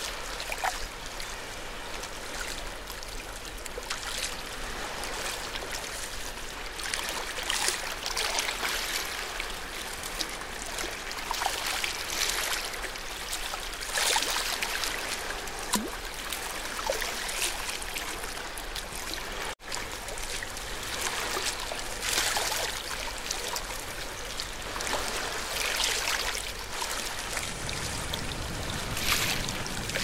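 Water splashing and trickling steadily, with irregular louder splashes every second or two. There is a brief dropout about two-thirds of the way through.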